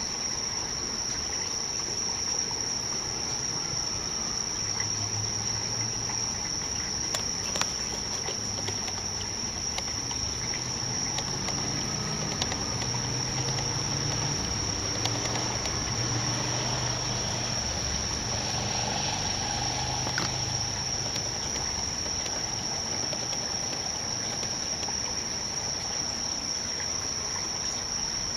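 Steady high-pitched insect trill over the pond, with low, drawn-out American bullfrog calls repeating fainter beneath it between about 4 and 20 seconds in.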